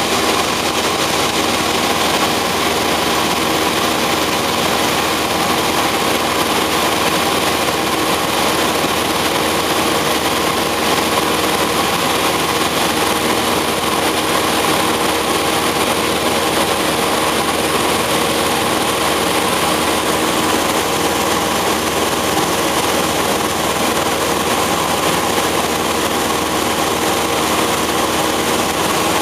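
Light plane's piston engine and propeller droning steadily in cruise, heard inside the cabin with a constant rush of airflow and no change in pitch.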